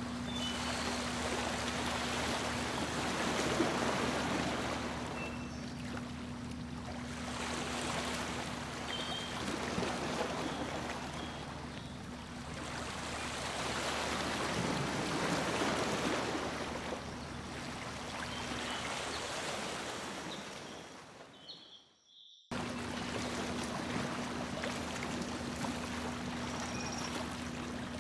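Boat under way: water rushing and splashing along the hull, swelling and easing every few seconds, over a steady motor hum. About three quarters of the way through the sound fades almost to nothing for a moment, then cuts back in abruptly.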